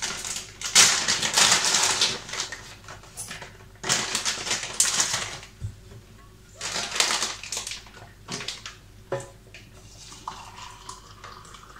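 Plastic foil tea pouch crinkling and rustling in several bursts as it is opened and handled, with small clicks. Near the end, water is poured from a kettle into a mug, its pitch rising as the mug fills.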